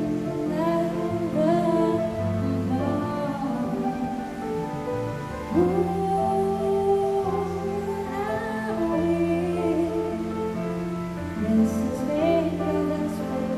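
A woman singing a slow song into a microphone, accompanied by a grand piano and a plucked upright double bass.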